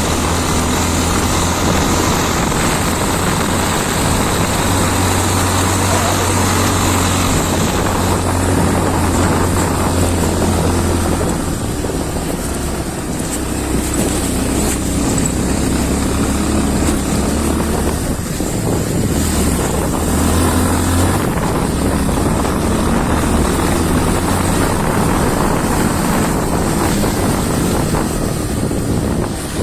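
Motorcycle engine running under way with wind noise on the microphone; the engine's low hum shifts about a third of the way in and again about two-thirds of the way in.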